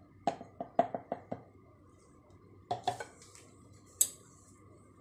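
Light knocks and clatter of a plastic pouring jug as soap batter is poured into a silicone mould and the jug is set down. A quick run of about five taps comes in the first second and a half, two more near the three-second mark, and one sharper click about four seconds in.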